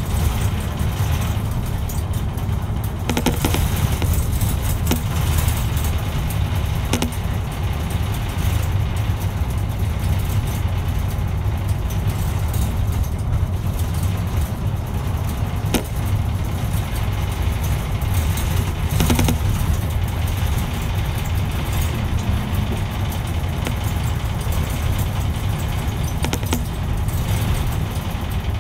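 Steady low rumble of a route bus's engine and running gear heard inside the cabin, with scattered short rattles and knocks.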